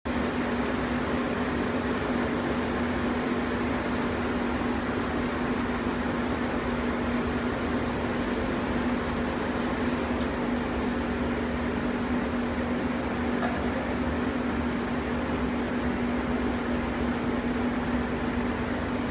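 Golden Laser FlyCut fabric laser cutter running while it cuts printed swimsuit fabric: a steady fan-like whirring hum with one constant low tone.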